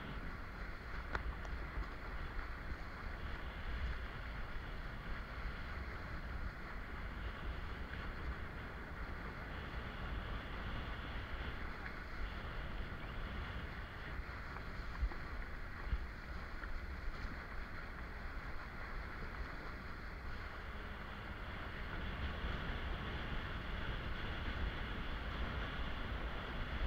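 Steady wind rumble on an action camera's microphone mixed with sea water rushing and splashing past a kiteboard riding through light chop.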